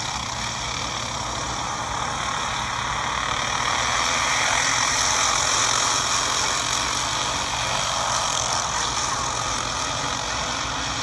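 Racing karts' engines running at speed on a dirt oval, the sound of the pack swelling as the field comes past about four to six seconds in, then easing slightly.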